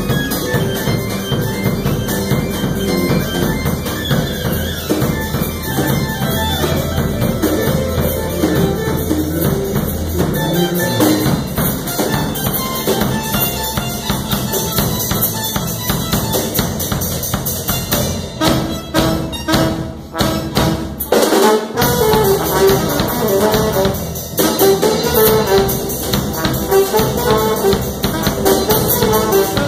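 A small jazz-fusion band rehearsing, with electric keyboards and a trombone playing the horn line; the brass melody stands out more clearly in the last few seconds.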